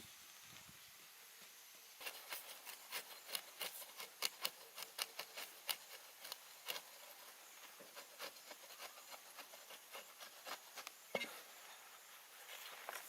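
Rapid, irregular scraping and clicking of hand work, starting about two seconds in and thinning out near the end, with one sharper knock about eleven seconds in.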